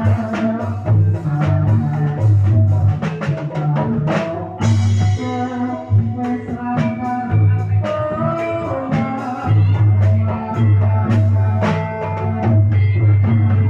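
Javanese jaranan (kuda lumping) gamelan music playing without a break: drums, gongs and struck metal percussion, with a bright crash about four and a half seconds in.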